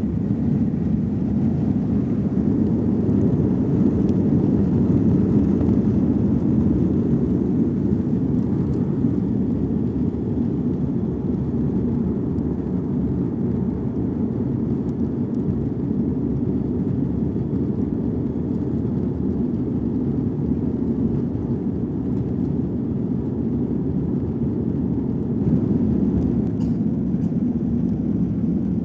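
Cabin noise of an Airbus A330-200 climbing out just after takeoff: its General Electric CF6 turbofans and the airflow past the fuselage make a steady low rumble.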